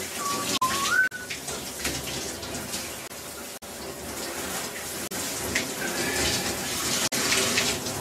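Running water, a steady splashing hiss like a tap or shower running. A short whistle-like tone rises about a second in, and a fainter one comes near six seconds in.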